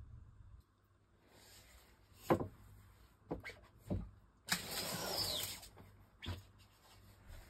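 Screen-printing work at the bench: a few sharp knocks and clicks from handling the screen frame and print, with about a second of louder scraping noise in the middle.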